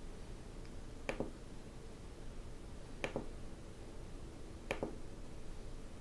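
Three clicks from the push switch built into a rotary encoder, about two seconds apart, each a quick press-and-release pair. Each press applies the selected LED function.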